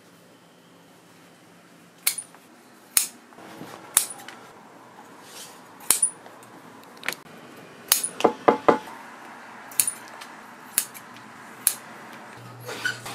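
Large steel shears cutting leather, each closing of the blades a sharp metallic snip. About ten snips come a second or so apart from about two seconds in, with a quick run of ringing clicks around eight seconds in.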